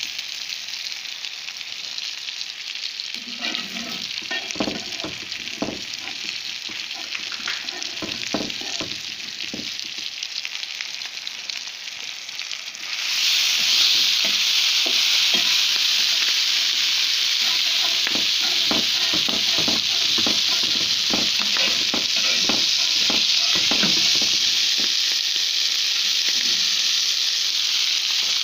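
Strips of meat sizzling in hot oil in a pan, turned and scraped with a metal spatula in irregular strokes. The sizzle gets suddenly louder about halfway through.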